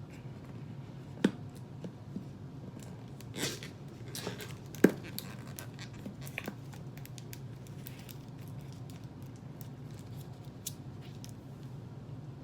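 Handling of a plastic soda bottle: scattered small clicks and a brief crinkle, with two sharper clicks about a second in and about five seconds in, over a low steady hum.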